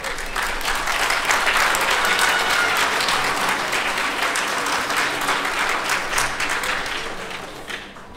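Audience applauding, building over the first second or two, then slowly dying away near the end.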